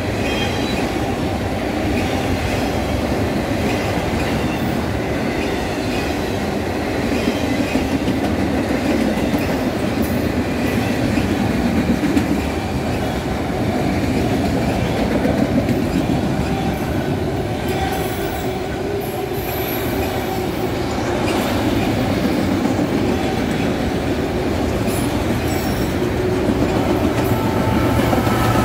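Autorack freight cars rolling past close by: a steady rumble and clatter of steel wheels on the rails, with a thin wheel squeal now and then.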